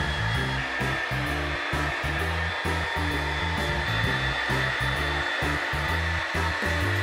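Electric heat gun blowing steadily, a constant rush of hot air, with background music and a steady bass beat underneath.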